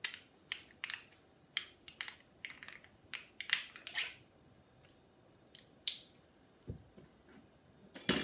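Plastic vegetable stock pot being opened by hand: its peel-off lid and tub crackling and clicking in a string of short, sharp bursts. A dull knock comes about two-thirds through and a sharp click near the end.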